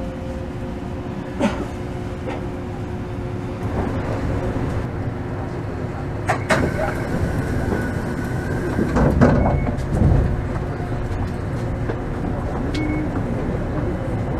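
Inside a Toden Arakawa Line streetcar: a steady hum from the car, with scattered clicks and knocks and a louder rumble about nine seconds in.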